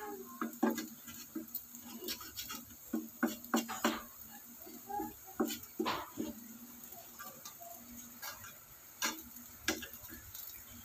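A wooden spatula stirring and scraping food in a frying pan, with irregular knocks and taps against the pan.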